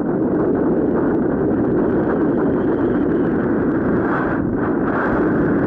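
Steady, loud wind rushing over the camera's microphone during a paraglider flight in turbulent wind.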